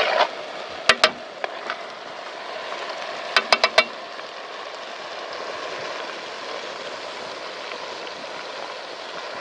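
Food sizzling in a pan, with a metal utensil clinking against the pan: twice about a second in, then four quick clinks a few seconds in.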